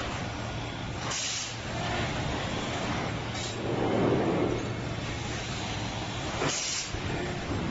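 Screen-printing factory machinery running with a steady hum, cut three times by short sharp hisses of compressed air, typical of pneumatic cylinders on the printing machines or the robot cell venting.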